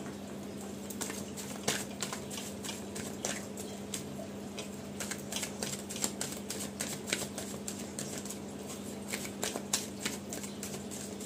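A deck of tarot cards being shuffled by hand: an irregular run of small clicks and slaps as the cards are pushed through each other, over a steady low hum.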